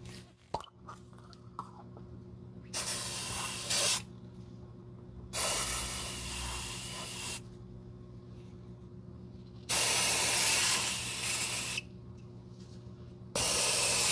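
Aerosol shoe deodorant spray can hissing in four separate bursts of one to two seconds each, with short pauses between, as it is sprayed into a leather loafer to deodorize it. A few small clicks come near the start.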